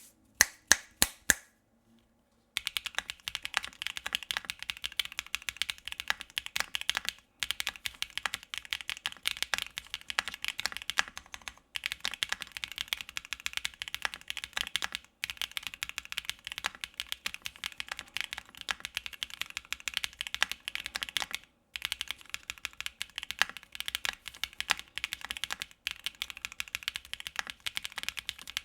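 Mechanical keyboard fitted with Keygeek Little Lucky linear switches, which have PA12 housings and UPE stems. A few single keystrokes come in the first second and a half. From about two and a half seconds the keys are typed fast and steadily, with a few short breaks.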